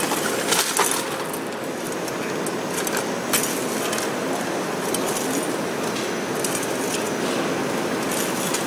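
Two cordless drills turning paddle shafts through a plastic tub of gravel, the pebbles rattling and clinking in a steady clatter.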